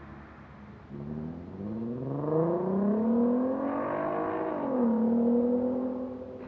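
A motor vehicle's engine accelerating on the road, its pitch climbing steadily for about three seconds, then dropping sharply about five seconds in and holding steady as it fades slightly.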